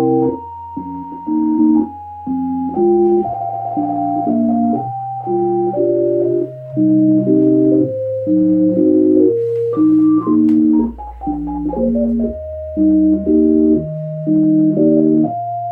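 Keyboard music from a Yamaha A4000 sampler: repeated organ- or electric-piano-like chords over a slow-moving bass line, with held melody notes on top.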